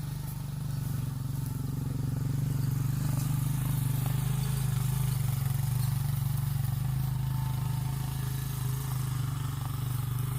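A small engine running steadily at an even speed while it pulls a homemade drag across freshly seeded ground.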